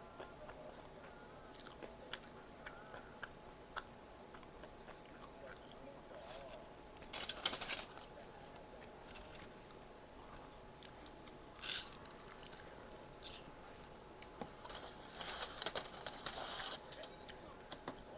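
Close-miked eating: crunchy bites and chewing of fried snack food. Crisp crunches come in bursts about 7 seconds in, twice around 12–13 seconds, and again for over a second near the end, with small mouth clicks in between.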